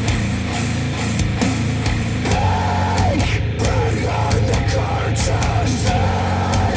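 Loud rock music with drums and a melodic line, played back through Wharfedale Denton 80th bookshelf speakers driven by a Cambridge AXA35 integrated amplifier.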